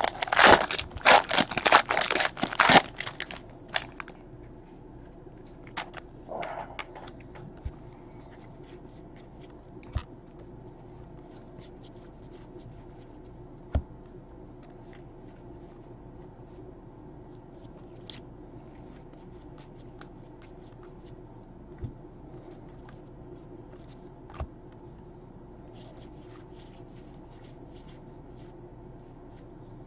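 A foil trading card pack being torn open and crinkling for about the first three seconds. Then mostly quiet room tone, with scattered soft clicks as the cards are handled and flipped.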